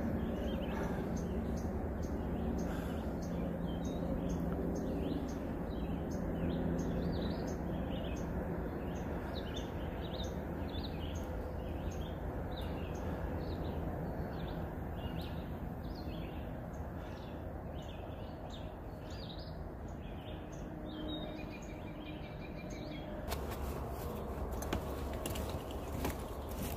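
Songbirds chirping: a fast run of short, high chirps that keeps repeating over a steady low background hum. Near the end the sound changes abruptly and a few sharp knocks are heard.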